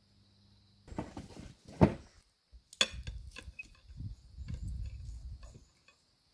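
Cutlery and crockery clinking and knocking: a serving spoon against a bowl and plates, then knives and forks working on plates. The sharpest knock comes about two seconds in, and a low rumbling noise runs through the second half.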